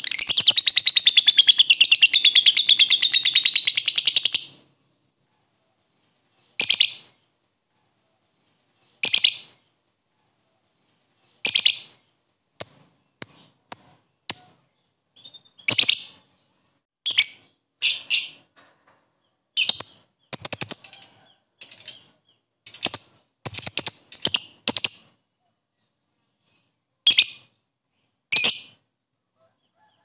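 Lovebird giving a long, rapid chattering trill (the 'ngekek' call) for about four and a half seconds, then short bursts of shrill chirps every second or two, some in quick runs.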